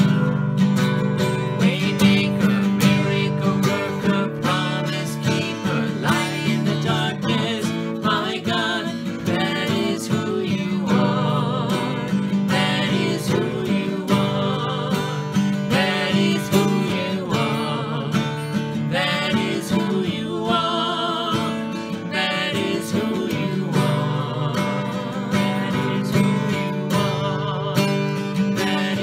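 A man and a woman singing a worship song together to a strummed acoustic guitar.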